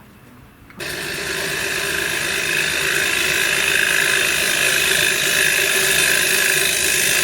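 A turning tool cutting into a spinning wooden blank on a small bench wood lathe, facing the work off. The cutting starts suddenly about a second in and then runs steadily with a scraping hiss over the lathe's hum.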